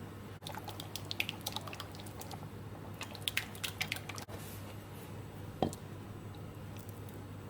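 Wet, squishy sounds of a utensil working a soft mixture in a bowl, in two spells of irregular small clicks, with one sharper knock about five and a half seconds in.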